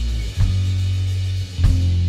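Rock band music: low, sustained guitar and bass notes over drums, the notes breaking off and changing twice, each change marked by a drum hit.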